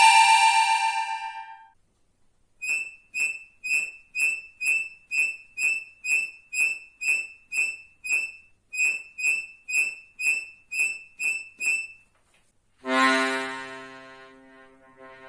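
Accordion imitating a cricket: short high chirps repeated about twice a second, with a brief pause midway. A held high note fades out at the start, and a low sustained accordion chord comes in loudly near the end.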